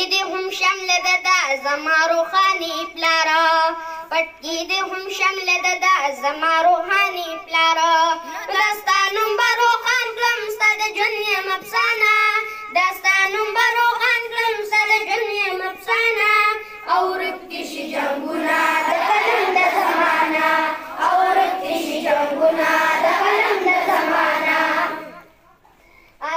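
A boy singing a tarana solo, unaccompanied, into a microphone; about two-thirds of the way through, a group of children's voices sings together in unison, then breaks off shortly before the end.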